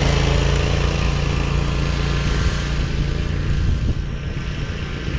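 Zero-turn riding mower engine running steadily as the mower drives off across the grass, getting a little fainter as it pulls away.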